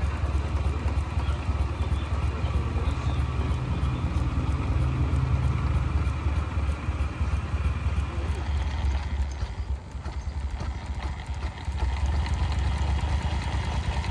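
7¼-inch gauge live-steam model of the BR 8P 'Duke of Gloucester' running under steam on its first steam test, a steady mechanical running sound with a heavy low rumble that dips briefly about ten seconds in.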